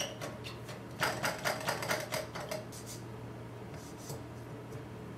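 Miniature linear-rail carriage slid by hand along its steel rail, its ball bearings giving a quick run of small clicks for about two seconds, then a few faint ticks.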